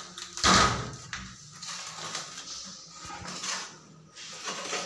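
Awning window being handled: a sharp clunk about half a second in, then a few softer knocks and rattles.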